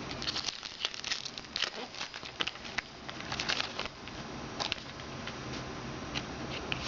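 Football trading cards being handled and flipped through one by one: an irregular string of light clicks and rustles.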